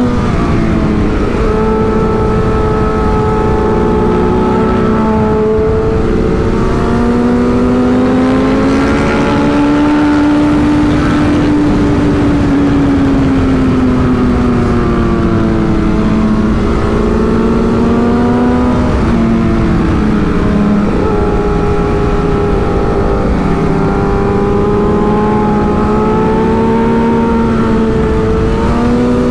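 Sportbike engine running at high, fairly steady revs, its pitch slowly rising and falling several times as the throttle is rolled on and off, with heavy wind noise on the microphone.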